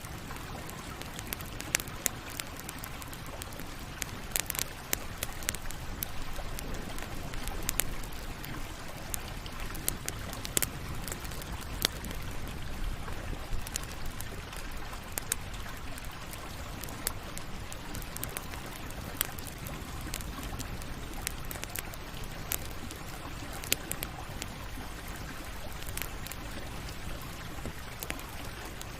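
Campfire burning: a steady hiss broken by frequent, irregular sharp crackles and pops of burning wood.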